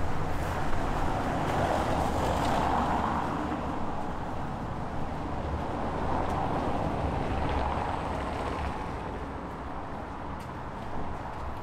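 Road traffic: cars passing along a street, their tyre and engine noise swelling and fading twice.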